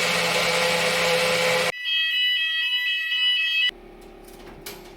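A loud rushing noise for under two seconds, then a building fire alarm sounding one shrill electronic tone for about two seconds, which cuts off abruptly to a faint low hum.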